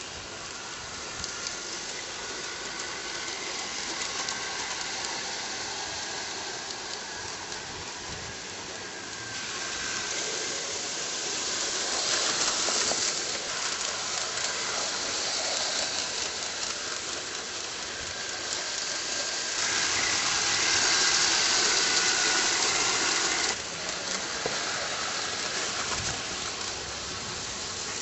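O gauge model streetcar running on outdoor track: a steady rushing hiss of wheels and motor with a faint wavering whine. It swells twice as the car passes near, and the second swell cuts off abruptly.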